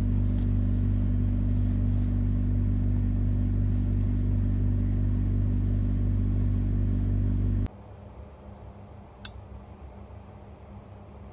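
A loud, steady, low mechanical drone that cuts off abruptly about three-quarters of the way through, leaving only faint room noise and a single click.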